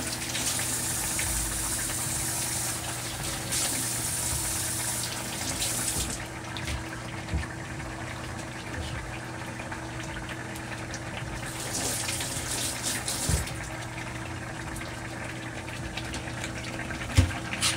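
Kitchen tap running into a steel sink for about six seconds, shut off, then running again briefly about twelve seconds in, over a steady low hum. A few knife knocks on a cutting board.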